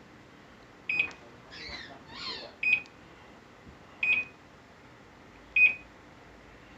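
Microwave oven keypad beeping as the cook time and power are keyed in: four short, identical beeps about a second and a half apart, one per button press.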